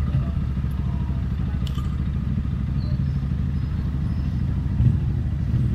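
Motorcycle on the move at a steady pace: a constant low rumble of engine and road noise with no changes in speed.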